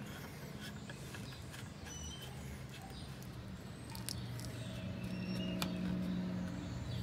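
Quiet scrapes and ticks of a plastic nut being spun by hand onto the plastic threaded through-hull fitting of a livewell pump. Under it is a low steady hum that grows louder about four seconds in, with a few faint high chirps.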